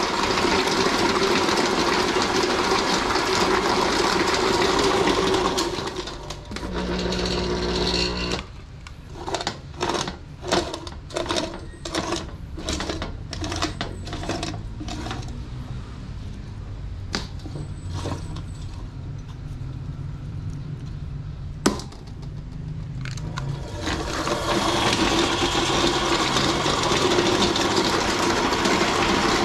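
Belt-driven electric meat grinder running loudly while grinding raw chicken. About six seconds in it drops to a lower hum, then there is a run of knocks about two a second. It stays quieter with a few clicks until it comes back to full noise about six seconds before the end.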